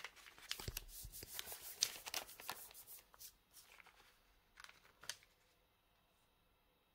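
Sheets of origami paper rustling and crackling as hands turn them over, smooth them flat and crease a fold. Busy with quick crinkles for the first three seconds, then a few soft crinkles about five seconds in.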